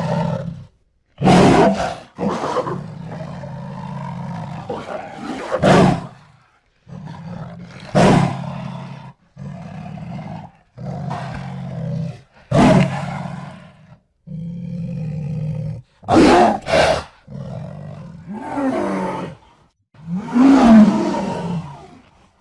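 Jaguar roars and grunts: a string of separate calls, each starting suddenly and loudly, with short silent gaps between them.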